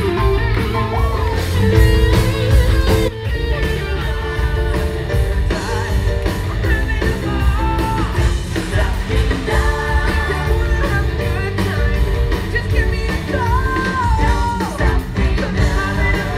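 Live rock band playing loud through a PA: drums, electric guitar and a singer.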